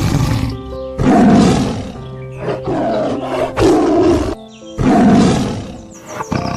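Three loud animal calls over background music, the first about a second in and the other two close together near the middle.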